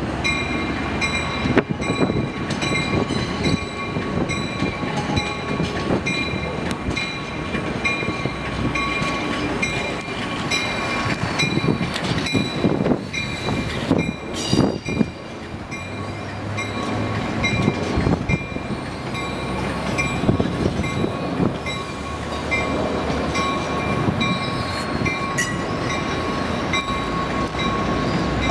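Amtrak Cascades Talgo passenger train rolling slowly past, its wheels clicking and knocking over rail joints and switches. A steady high-pitched ring runs through the whole passage.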